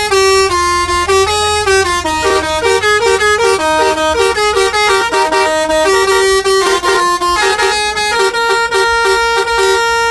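Indonesian telolet bus horn playing a long, loud tune of quick stepped notes, often two at once.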